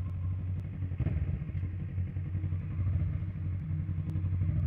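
Motorcycle engine running steadily while the bike is ridden at road speed, heard from the rider's seat as a steady low rumble.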